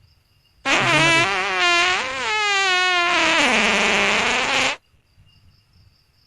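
Unexplained strange sound reported by residents: a loud, pitched, horn-like tone lasting about four seconds, wavering up and down and sinking in pitch near the end, starting and stopping abruptly. Crickets chirp faintly before and after it.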